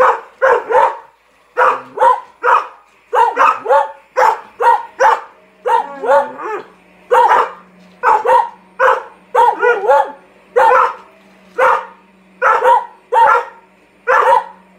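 Collies barking over and over, short sharp barks in quick runs of about one to two a second. A low steady hum starts about five and a half seconds in.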